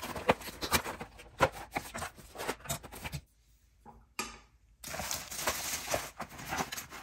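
Cardboard packaging rustling and clicking as a towel ring is unboxed and handled, with a short silent break midway.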